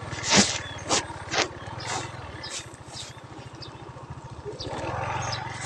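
A small engine running steadily, with several short sharp knocks.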